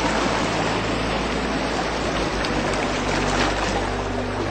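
Ambient soundscape: a steady rushing noise like flowing water, over a low sustained drone whose notes shift slowly.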